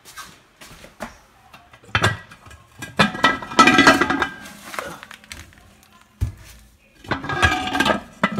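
Kitchen dishes and utensils clattering and clinking as they are moved about, in two bursts: one about two seconds in, another near the end.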